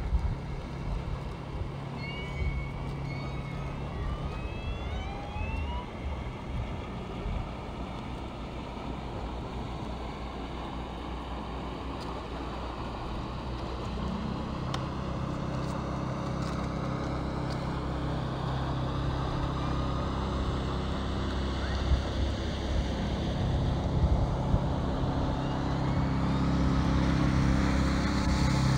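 Boat engine running steadily with a low hum. About halfway through its note changes, and it grows louder near the end.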